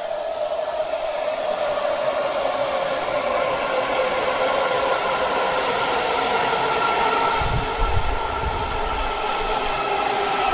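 Washington Metro 7000-series subway train pulling into an underground station. Its traction motors whine in several tones that fall slowly as it brakes. A low rumble from the wheels comes in as the cars run past.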